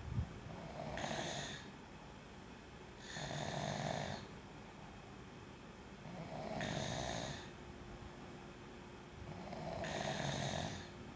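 Slow, regular snoring: four snores about three seconds apart, with quieter stretches between. A brief low thump just after the start.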